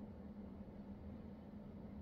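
Quiet room tone: a faint, steady low hum with no other sounds.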